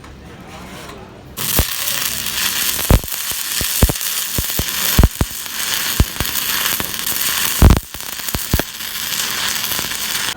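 Electric arc welding on a cargo lift's gear winch: the arc strikes about a second and a half in and runs as a loud, crackling hiss with sharp pops. It breaks briefly near 8 seconds, then cuts off at the end.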